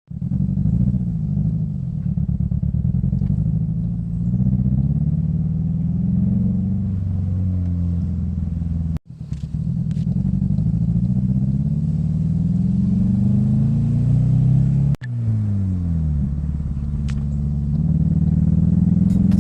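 2005 Scion xB's four-cylinder engine running and being revved up and down, with the engine pitch rising and falling, heard in three stretches split by abrupt cuts about 9 and 15 seconds in.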